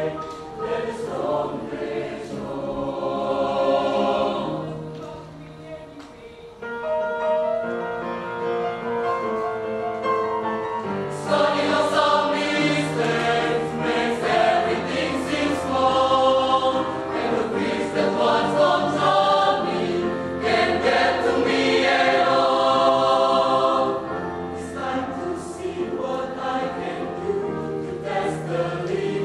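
Mixed choir singing a pop-jazz arrangement in sustained chords, going softer about five seconds in and swelling fuller and louder about eleven seconds in.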